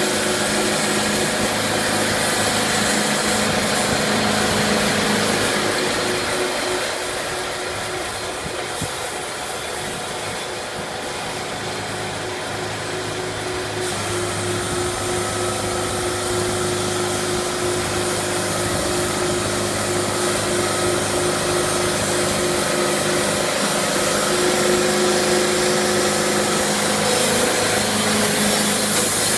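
Sawmill machinery running: a steady mechanical drone with a constant hum, easing off slightly for several seconds in the middle.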